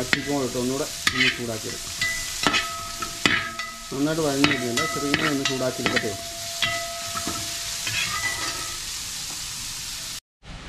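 Metal skimmer spoon scraping and knocking against a large aluminium pan as sliced onions are stirred, the onions sizzling as they fry. Each knock leaves the pan ringing briefly.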